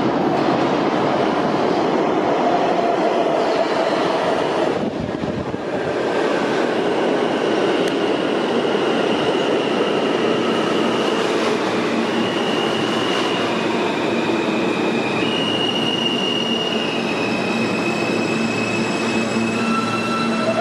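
New York City subway train (R160A-2 cars) running into the station along the platform: a loud, continuous rumble of wheels on the rails. From about seven seconds in, high steady tones that change pitch in steps rise over it as the train slows.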